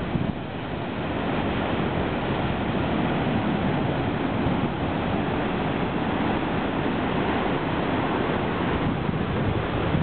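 Heavy storm surf breaking on a rock platform, white water rushing and washing across the rocks in a dense, continuous wash of noise that grows louder about a second in and then holds steady.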